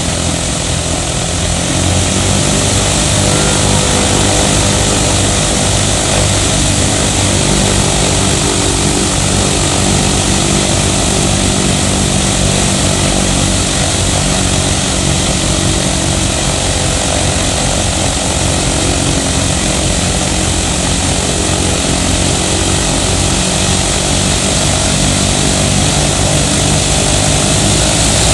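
Il-14's Shvetsov ASh-82T 14-cylinder radial engine running steadily with its propeller turning, a continuous loud engine drone. It grows slightly louder about two seconds in and again near the end.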